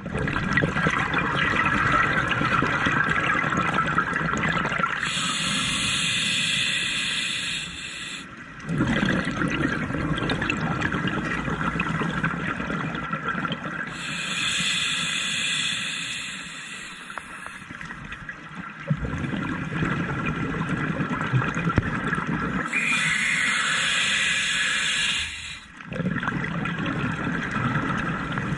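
Scuba diver breathing through a regulator underwater: three slow breaths about nine seconds apart, each a hissing inhalation of about three seconds followed by a longer bubbling, gurgling exhalation.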